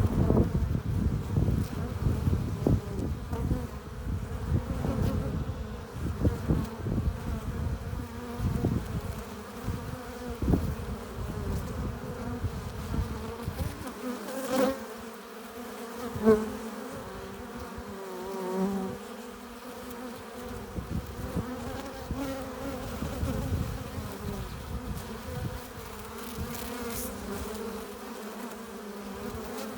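Honeybees buzzing at a hive entrance, many wingbeats blending into a steady hum with individual bees droning past close by. The foragers are flying in with pollen and nectar.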